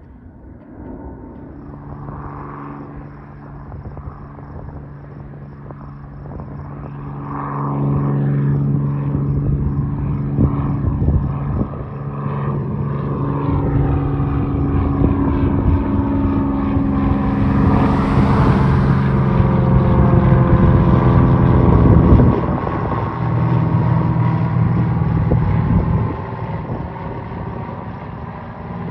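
Single-engine propeller light plane flying over after takeoff: a steady engine and propeller drone that grows louder as it approaches, peaks, and slides down in pitch as it passes overhead, then drops away about four-fifths of the way in.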